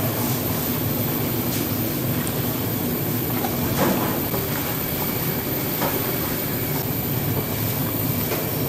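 Steady low rumbling background noise with a few faint clicks about two seconds apart.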